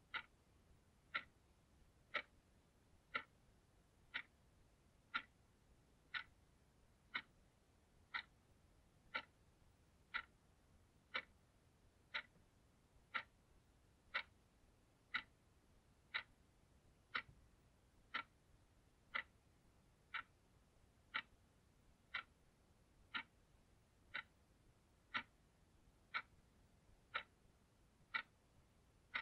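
Blue analogue alarm clock ticking steadily, one sharp tick a second as the second hand steps.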